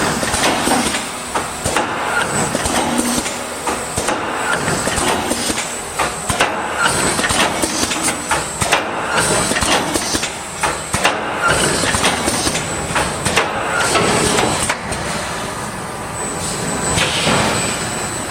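Cable tray panel mesh welding machine running on stainless steel wire: steady mechanical noise with frequent irregular sharp knocks and clatter, and a thin high whine throughout.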